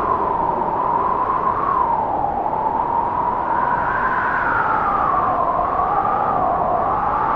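Wind howling: a steady rushing noise with a whistling tone over it that slowly rises and falls, about every four seconds.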